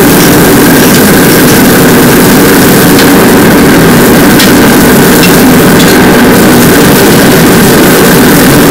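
Commercial gas wok burner and range running at full flame, a loud steady roar, with a few faint metal clinks of the ladle against the wok.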